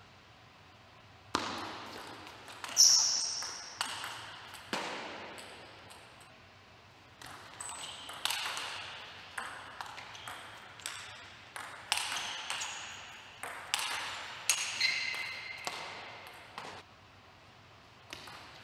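Plastic table tennis ball being hit back and forth, sharp pings of ball on bat and table, each with a short ring. A few separate hits come in the first five seconds, then a fast rally of a hit about every half second runs from about seven seconds in until shortly before the end.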